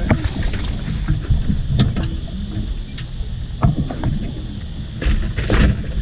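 Water and wind rumbling around a small fishing boat's hull, with a few short knocks and clicks scattered through.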